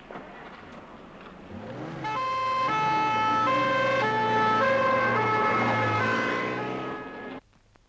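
Two-tone emergency-vehicle siren alternating between two pitches over a low engine hum, starting about two seconds in and cutting off suddenly near the end.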